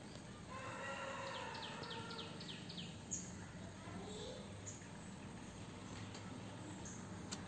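A bird calling in the background: a quick run of about seven falling chirps a second or so in, over a steady low hum, with a few faint ticks later.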